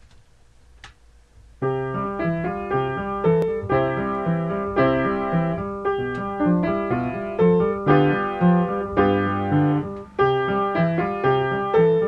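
Background piano music, a steady flow of chords and melody, starting about one and a half seconds in after a faint, quiet opening.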